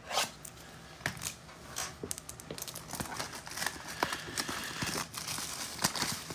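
Foil wrappers of football trading-card packs crinkling and tearing as they are ripped open, with light clicks and taps of the cards being handled.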